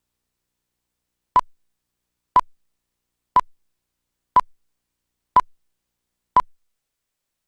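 Countdown-leader beeps: six short beeps of the same pitch, one a second, each sounding with a number of the countdown.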